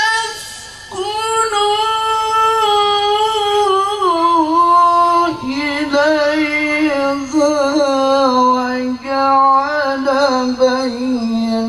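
A man's voice chanting Quran recitation in melodic tilawah style through a microphone and loudspeaker, holding long ornamented notes. The pitch steps down to a lower held note about halfway through.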